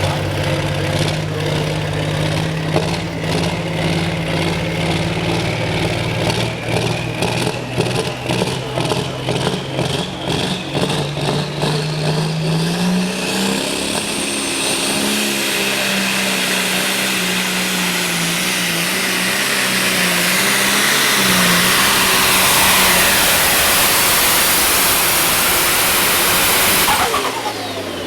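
Modified farm pulling tractor's turbocharged diesel engine running hard under load. A high whine climbs steadily in pitch over the first half, then the engine grows louder and fuller before cutting off sharply near the end.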